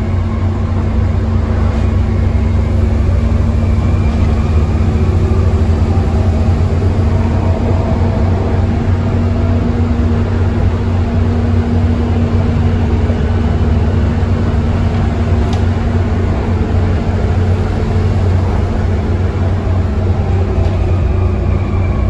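Volvo B7TL double-decker bus's seven-litre six-cylinder diesel engine working hard at a steady cruise, a loud, even, low drone heard from inside the passenger saloon.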